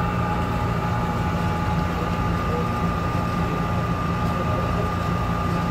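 Wire drum of a fast-wire molybdenum EDM spinning in high-speed mode as it travels back toward its right-hand limit: a steady mechanical hum with a thin, constant high whine.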